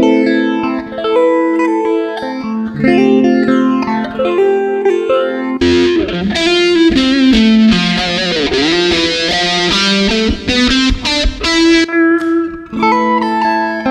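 Bass guitar played through a Zoom 708II bass multi-effects pedal: a run of effected melodic notes, brighter and busier in the middle, where one note bends down in pitch and back up.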